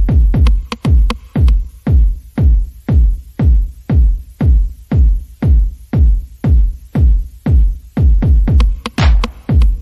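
Background electronic dance music with a heavy kick drum beating steadily about twice a second.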